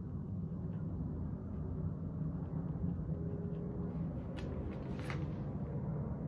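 Steady low room hum, with a few faint soft rustles in the second half as paper cards are handled.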